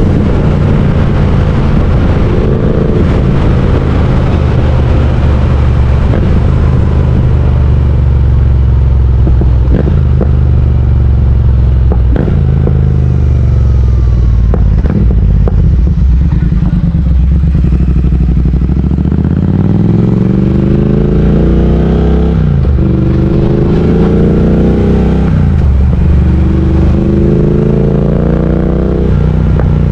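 Triumph Speed Twin 1200's parallel-twin engine under way: a steady low drone at cruising speed, then three climbs in pitch as it accelerates, broken by two upshifts about two-thirds of the way in and a few seconds later.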